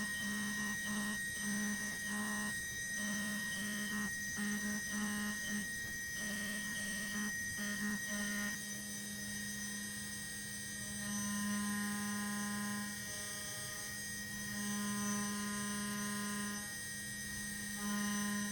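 Hobby CNC milling an aluminum part: a steady high spindle whine, with lower motor tones that start and stop in short pulses for about the first eight seconds, then run steadier at new pitches for the rest.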